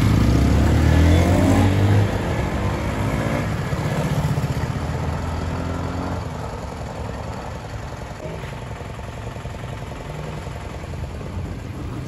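Motorcycle pulling away, its engine revving up in rising steps and then fading into the distance over the first several seconds. Quieter street traffic follows.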